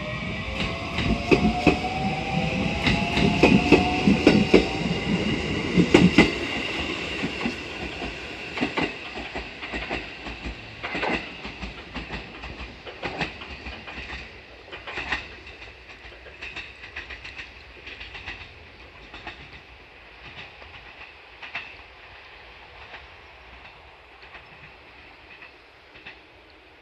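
A train running along the line, with a whine that rises in pitch over the first few seconds. Its wheels clack sharply over rail joints, loudest in the first six seconds, then the clacks space out and the sound fades as the train draws away.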